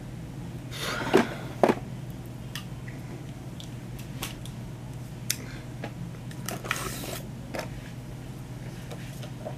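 Handling noises as cosmetic products and their packaging are picked up and moved: scattered light clicks and taps, two louder short knocks about a second in, and a brief rustle near the middle. A steady low hum runs underneath.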